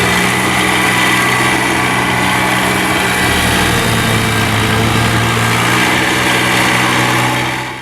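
Small petrol engine of a snowblower running steadily while clearing deep snow, fading out at the very end.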